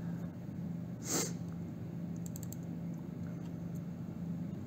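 Low steady background hum, with a short breath about a second in and a few faint clicks a little after two seconds.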